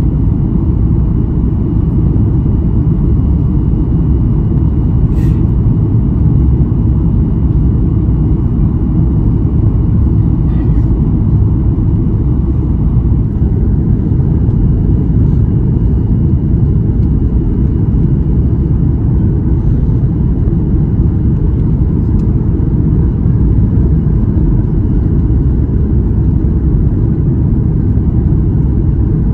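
Steady low cabin roar of a Boeing 737-8 MAX in descent on approach with flaps extended, heard from a seat behind the wing: airflow and its CFM LEAP-1B engines, with a faint steady high whine over it.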